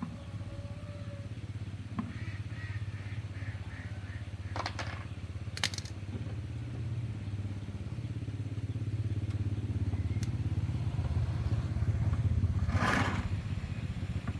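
Small engine running steadily with a low, evenly pulsing note, with a few short clatters over it and a louder swell near the end.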